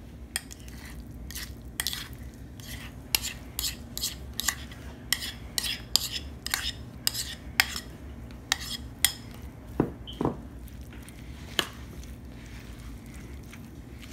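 Utensil clicking and scraping against bowls about twice a second as mashed guacamole is scraped out of its bowl into a bowl of chopped salsa and mixed in. The clicks thin out to a few scattered knocks in the second half.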